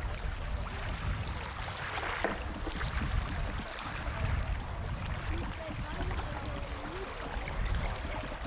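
Outdoor lakeside ambience: a steady low, fluttering rumble with hiss, typical of wind on a camcorder microphone.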